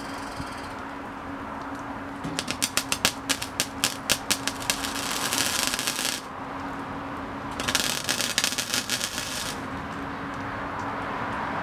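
MIG welder laying weld on sheet-metal tailgate patches: two runs of crackling arc, the first starting as scattered pops that run into a steady sizzle, the second shorter, about a second and a half later. A steady low hum sits underneath.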